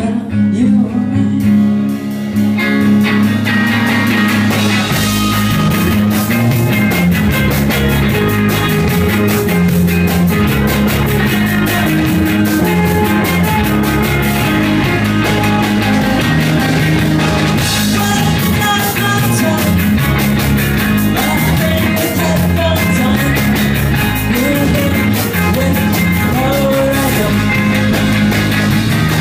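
Rock band playing live and loud: two electric guitars, electric bass and drum kit, with a sung lead vocal. The full band fills in about two seconds in.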